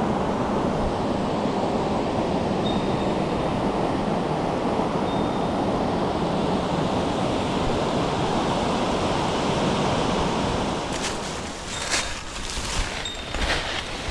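Mountain stream in high flow, a loud steady rush of water. About eleven seconds in the rush eases and several short sharp knocks or splashes come through.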